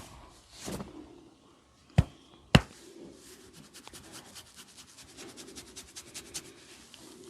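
Barber's hands on a client's head during a head massage: two sharp smacks about half a second apart, then a long run of quick light crackling taps.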